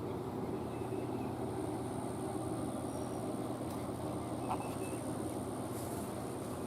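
Steady low mechanical hum, with a faint high-pitched whine above it.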